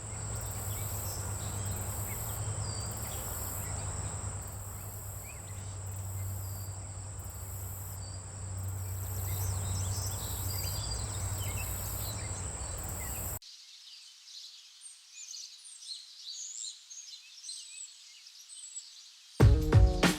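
Steady outdoor ambience with a low hum and a constant high-pitched whine. About two-thirds of the way in it cuts off abruptly to a quiet stretch with faint, scattered bird chirps, and music starts just before the end.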